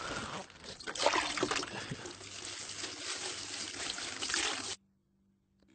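Running water pouring and splashing over a mobile phone as it is rinsed under the stream. It cuts off suddenly near the end, leaving only a faint low hum.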